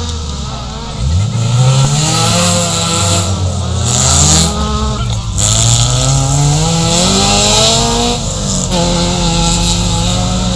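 Autocross race cars running at full throttle on a dirt track. One engine gets louder about a second in and climbs in pitch through the gears, with shifts near five and eight seconds in, then holds a steadier note.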